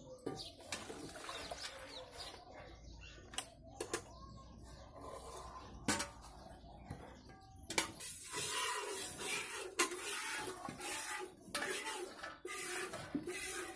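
A cow being hand-milked into a steel pail: a few sharp clanks of the metal bucket and basin, then, about halfway through, a quick series of hissing squirts as the milk streams hit the pail.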